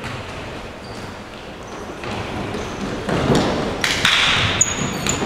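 Futsal play in an echoing sports hall: the ball thudding off feet and the floor, with short high squeaks of court shoes on the floor, louder in the second half.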